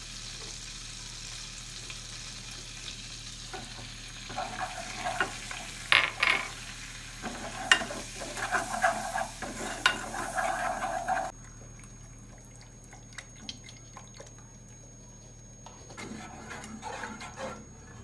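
Flour-and-fat roux sizzling in a non-stick saucepan on a gas burner while a wooden spoon stirs and scrapes the pan. The sizzling cuts off abruptly about eleven seconds in, leaving quieter stirring in a pale milky sauce.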